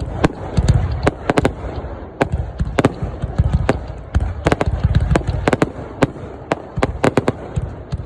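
Fireworks going off: a dense, irregular run of sharp cracks, several a second, over a continuous low rumble of bursts.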